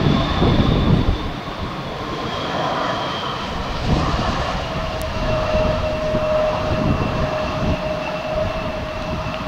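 Distant jet engines of a taxiing American Eagle regional jet: a steady high whine that slowly falls in pitch, with a lower steady tone joining about five seconds in, over a low rumble.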